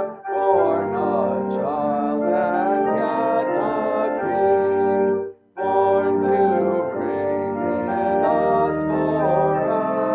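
Pipe or electronic church organ accompanying a congregation singing a hymn, with sustained chords. There is a short pause between phrases about five and a half seconds in.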